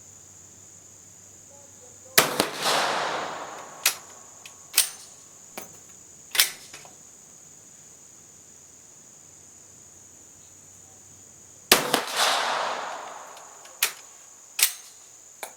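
Two shots from a Swiss Vetterli bolt-action rifle about nine and a half seconds apart, each with a long echoing tail, each followed by a few sharp clicks as the bolt is worked. Insects keep up a steady high-pitched drone throughout.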